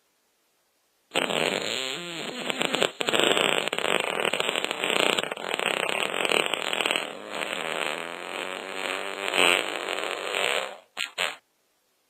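A long, drawn-out fart sound that starts about a second in and runs for about ten seconds, rippling and wavering in pitch, followed by two short toots near the end.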